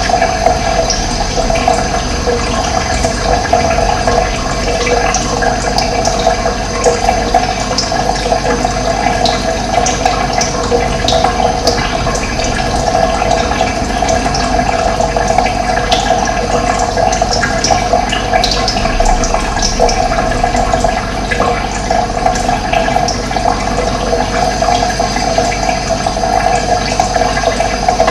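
Steady rushing of running water, with scattered short, high bird chirps over it.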